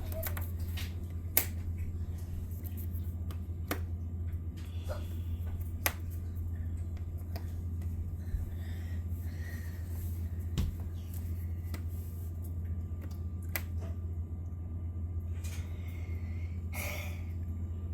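Sparse light clicks and taps, plastic letter magnets being picked off and set onto a fridge door, over a steady low hum.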